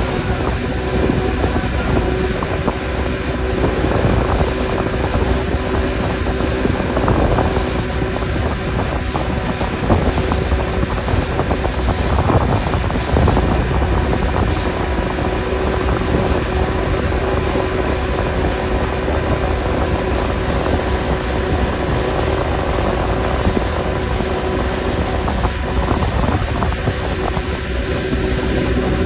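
Mercury 60 hp outboard motor running steadily at speed under tow load, with the churn of the wake and wind on the microphone.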